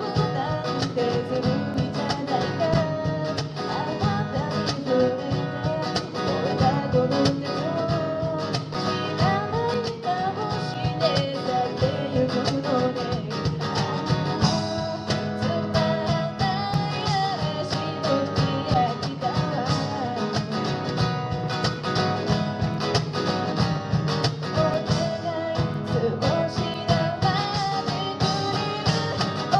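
Live acoustic song: a voice singing a melody over strummed acoustic guitar, with a steady beat from a handmade wooden cajon.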